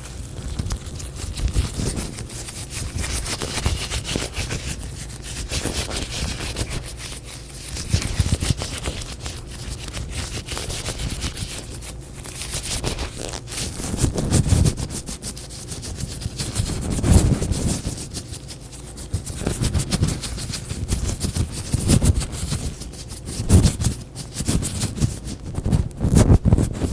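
Latex gloves rubbed, stretched and crinkled close to the microphone, a continuous dense crackling with dull low thuds every few seconds.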